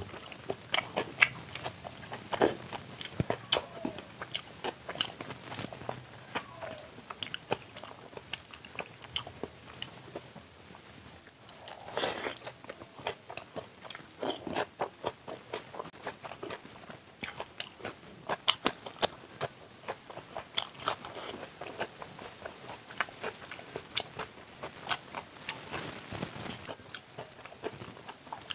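Close-miked eating sounds of a man chewing mouthfuls of oily chowmein and egg curry eaten by hand: wet chewing with many irregular sharp clicks and occasional crunches.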